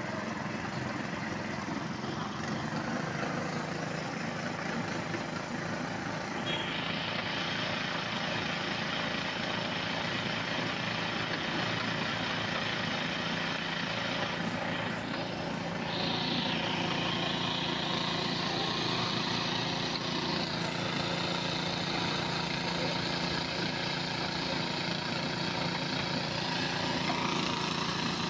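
Small engine running steadily, driving the flywheel and rollers of a sugarcane juice crushing machine.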